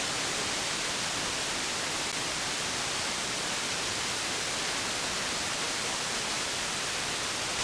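CB radio receiver hissing steadily with open-channel static between transmissions, while no station is coming through.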